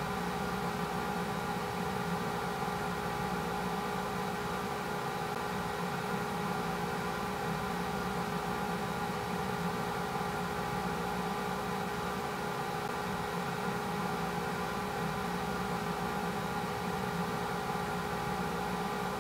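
A steady machine-like whirring hum with several fixed tones, unchanging throughout.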